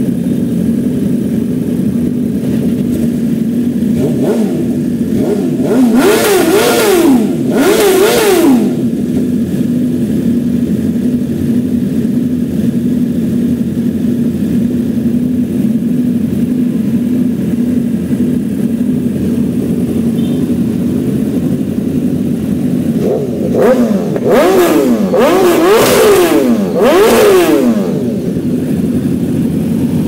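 1000 cc BMW superbike inline-four engines idling steadily, with the throttle blipped in short, sharp revs that rise and fall: two about six seconds in and three more near the end.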